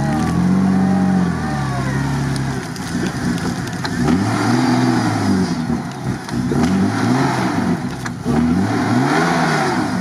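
Off-road vehicle engine revving up and dropping back again and again, four surges in a row, under load during a tow-line recovery of a stuck Jeep.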